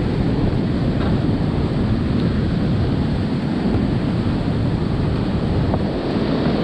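Whitewater rapids of a creek in high flow: a steady, loud rush of churning water, heaviest in the low end.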